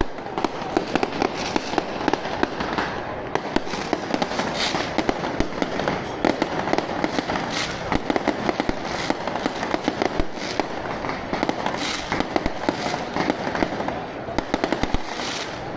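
Dense, unbroken barrage of firecracker and fireworks bangs, many sharp cracks a second.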